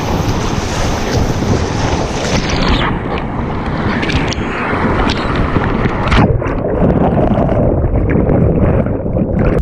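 Loud rushing whitewater with wind buffeting the microphone, a steady roar of noise throughout, the high end dulling after about three seconds.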